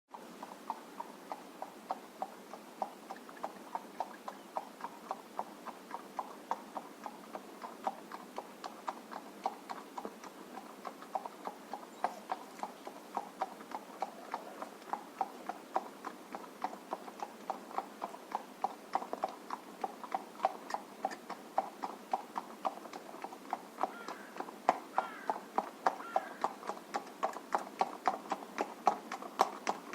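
A horse's hooves clip-clopping at a walk on a road: a steady, even rhythm of hoof strikes that grows louder in the last few seconds.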